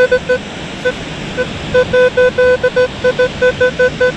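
Metal detector beeping as its coil sweeps over a buried target on the beach: one steady mid-pitched tone chopped into many short beeps with a few longer ones, coming about three or four times a second later on, over a steady background rush.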